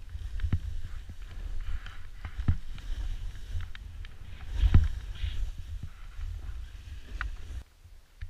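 Skiing down through deep powder snow heard from a helmet camera: a low rumble of wind and snow on the microphone with scattered thumps from the skis landing, the loudest about two-thirds of the way through. Near the end the rumble drops away abruptly.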